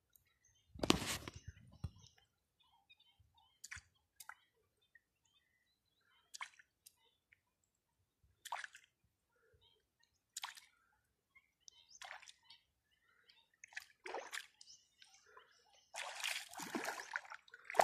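Water splashing and dripping at a river's edge as hands work in the shallow water: scattered small splashes and drips, a louder splash about a second in, and continuous splashing near the end.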